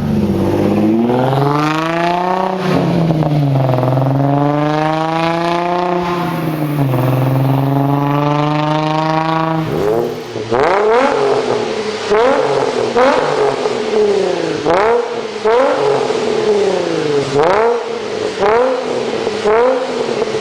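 Nissan 350Z V6 engine and exhaust, first pulling up through the revs in long rising and falling sweeps, then, after a cut about halfway through, revved repeatedly in quick blips about one a second.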